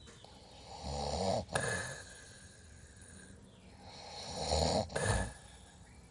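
Snoring: two loud snoring breaths a few seconds apart, each made of two parts in quick succession.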